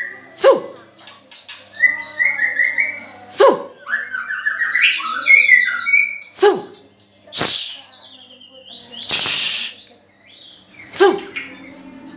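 A nine-month-old white-rumped shama singing loudly: a varied song of sharp notes that sweep steeply down in pitch, rapid warbled phrases, and a harsh rasping burst about nine seconds in.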